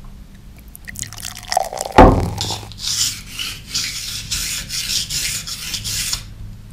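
Water dripping onto a whetstone, a single knock about two seconds in, then a kitchen knife blade scraped back and forth on the wet stone, about three strokes a second, stopping shortly before the end.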